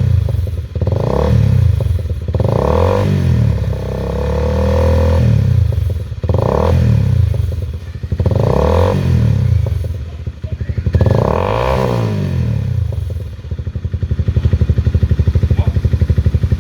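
A 2012 Honda CBR250R's single-cylinder engine is revved through an SC Project full-system carbon exhaust in a run of quick throttle blips, each rising and falling in pitch, with one rev held longer. Near the end it drops back to a steady, pulsing idle.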